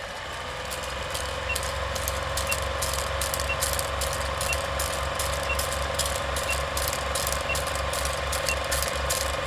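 Old film projector sound effect: a steady mechanical clatter with a rhythmic low pulse and crackling clicks, and a short high beep about once a second, counting down the film leader.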